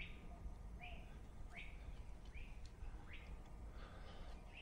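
A bird calling over and over, short sharp chirps at an even pace of a little over one a second, over a faint low background rumble.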